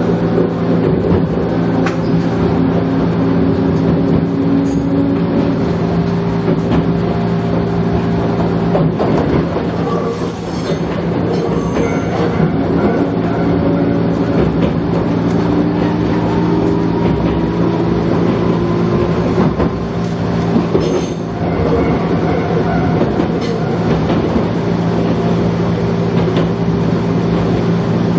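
Gakunan Railway electric train running, heard from the front of the car: a steady motor hum with a whine that slowly rises in pitch midway, and wheels clicking over rail joints.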